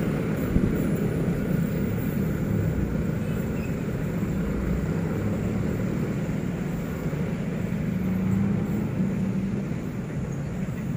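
Freight train of loaded clinker hopper wagons rolling away along the track: a steady low rumble of the wagons and the locomotive's diesel engine, fading slightly near the end.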